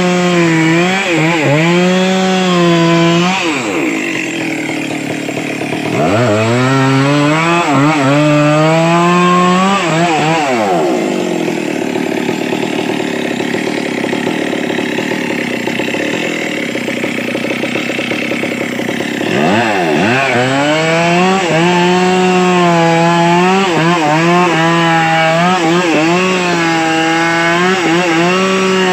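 Stihl two-stroke chainsaw cutting a large log under load, its engine note dipping briefly again and again as the chain bites. Twice, about four seconds in and from about eleven to nineteen seconds, the note climbs away into a rougher, slightly quieter whir before settling back.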